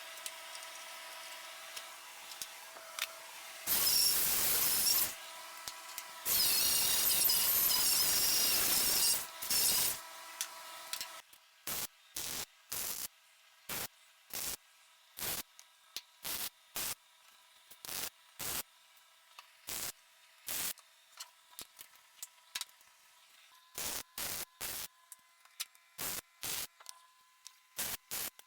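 MIG welder welding: two longer welds of a second or more in the first ten seconds, then a string of short tack-weld bursts about a second apart. A faint steady hum runs under the first part.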